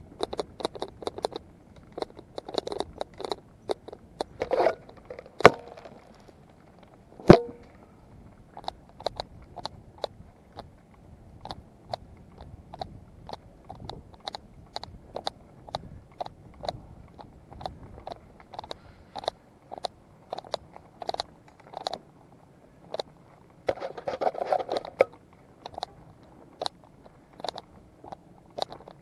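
Mountain bike rattling down rough, leaf-covered singletrack: a steady run of irregular sharp clicks and knocks as the bike jolts over the bumps, with tyres crunching over dry leaves. One hard knock comes about seven seconds in, and there is a denser burst of rattling a few seconds before the end.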